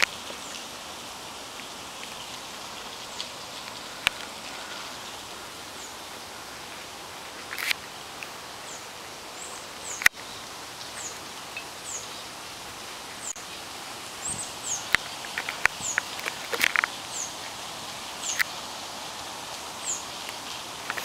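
Steady hiss of rain, with rustles and a few sharp knocks of leaves and branches brushing close by. A bird's high, short, falling chirps repeat through the second half.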